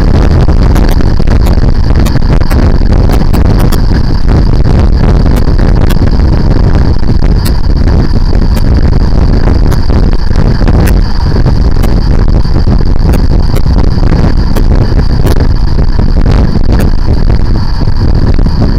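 Motorcycle riding at speed on a motorway: loud wind rumble over the microphone mixed with the engine's drone. A steady high whine and occasional brief clicks run through it.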